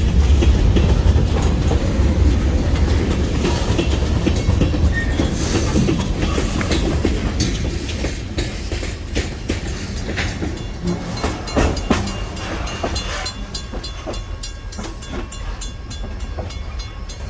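Freight train rolling past, its wheels clicking over rail joints under a low rumble that slowly fades.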